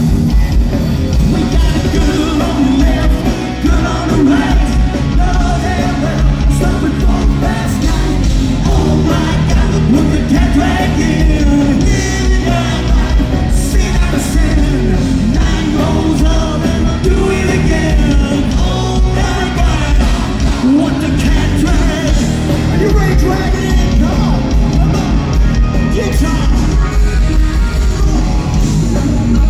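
A live rock band playing loud, with a male lead singer singing into a microphone over electric guitar and drums, heard from within the crowd.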